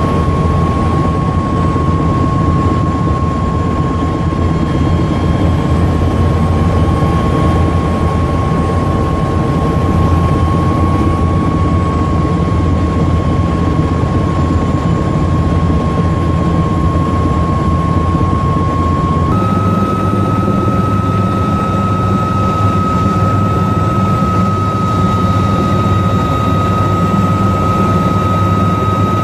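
AH-1Z Viper attack helicopter heard from inside the cockpit in flight: the steady, loud noise of its twin turboshaft engines and main rotor, with a low rumble and a steady high whine. About two-thirds of the way through, the whine steps to a slightly higher pitch.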